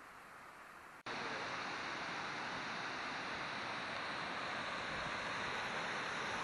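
Water pouring down a dam's stone spillway face, a steady rushing hiss that cuts in abruptly about a second in after a faint background hiss.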